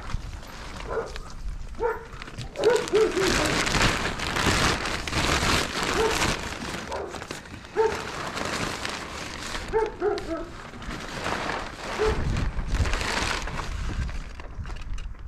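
Clear plastic sheeting crinkling and rustling as it is pulled off a solar panel, loudest in the middle stretch. Short pitched whines from a small dog come through now and then.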